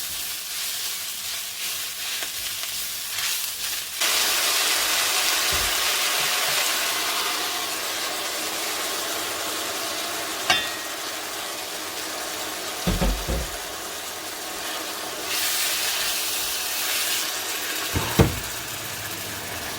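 Seasoned castor-bean leaf greens stir-frying in sesame and perilla oil in a frying pan: a steady sizzle with stirring, which gets suddenly louder about four seconds in. There are a few short knocks along the way.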